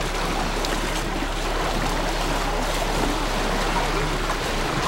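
Water rushing and splashing steadily along the hull of a paddled canoe, with paddle strokes churning the surface.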